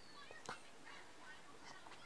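Faint cartoon soundtrack from a television, with scattered snatches of voices and effects, and one sharp click about half a second in.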